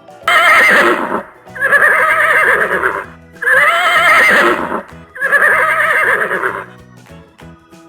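A horse whinnying four times in a row, each call about a second long with a wavering pitch, over soft background music.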